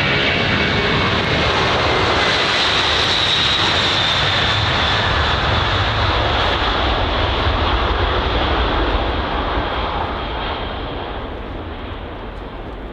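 Boeing 747-200 jet engines at high power, a loud steady roar with a high whine on top that eases off a little near the end.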